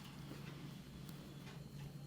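Faint, soft strokes of hands rubbing and tapping on a head and scalp during a barber's head massage, over a steady low hum.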